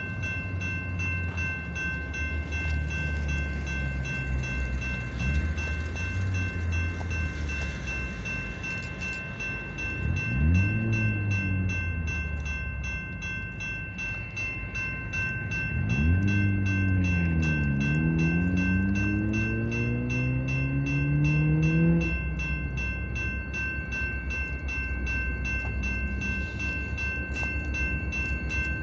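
Diesel switching locomotives running, their engines revving up briefly about ten seconds in, then again around sixteen seconds, the pitch climbing and holding for several seconds before dropping back. A steady high whine sounds throughout.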